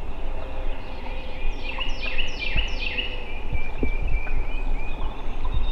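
A songbird sings four short whistled notes, each sliding down in pitch, over a low steady rumble.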